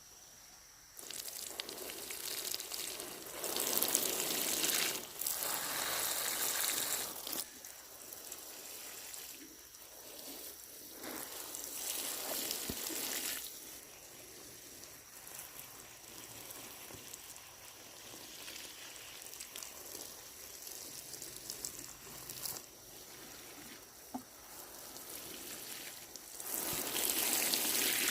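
Water pouring and splashing in several uneven bursts of a second or two each, with quieter trickling in between.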